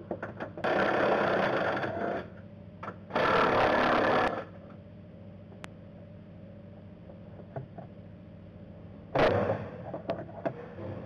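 Handling noise from removing a plastic coolant degas reservoir: two long scraping, rustling bursts in the first four seconds, then a few light clicks and a shorter scrape about nine seconds in.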